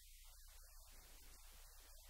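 Near silence: a faint, steady low hum under a thin hiss.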